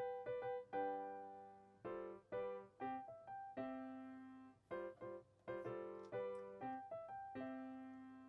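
Background music: a light piano tune of struck notes and chords, each one fading after it is played.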